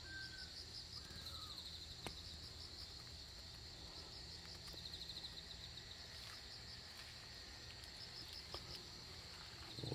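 Faint, steady high-pitched chirring of insects, with stretches of rapid even pulsing.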